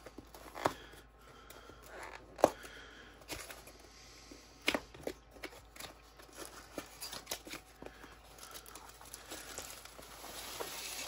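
Long cardboard box being handled and its end flap opened by hand: scattered taps, scrapes and clicks, with a rustle that grows over the last few seconds as the contents are drawn out.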